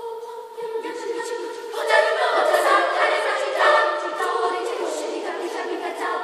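Girls' youth choir singing unaccompanied, holding sustained chords; the sound swells fuller and louder about two seconds in, then eases back.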